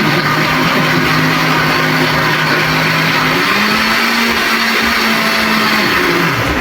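Electric kitchen blender running steadily. Its motor pitch steps up a little about halfway through, and it switches off at the end.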